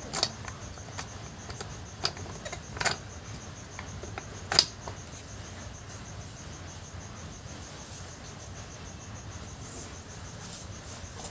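A few sharp clicks and knocks as old plastic water-pump parts and small components are handled and set down on a cloth-covered table, the loudest about four and a half seconds in. A faint, steady, rapidly pulsing high-pitched sound runs underneath.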